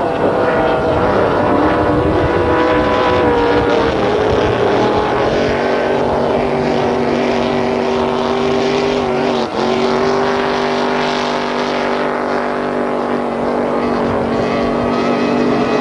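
Racing powerboat engines running at high revs. In the first few seconds several engine notes shift and cross as boats go by; then one engine holds a steady high note, broken briefly about nine and a half seconds in.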